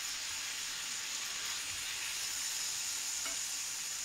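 Pan of lard-wrapped prawns in bisque sauce sizzling steadily on the stove, the heat just switched off, with a faint tap about three seconds in as the prawns are lifted out.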